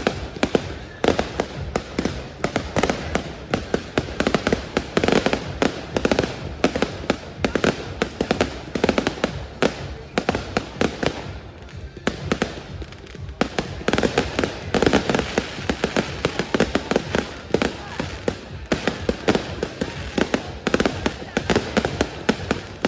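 Fireworks crackling: a dense, rapid run of sharp cracks that keeps going, easing off briefly about halfway through before picking up again.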